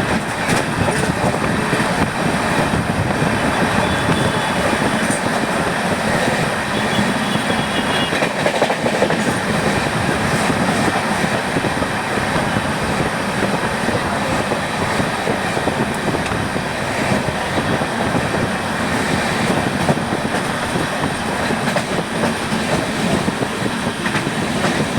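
Steady running noise of a moving train heard from on board: wheels rumbling and rattling over the rails. A faint high squeal shows up briefly twice a few seconds in.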